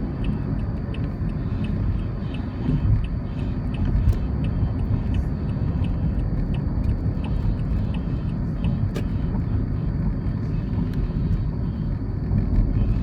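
Steady low rumble of a road vehicle on the move, with a faint regular ticking about two to three times a second over it.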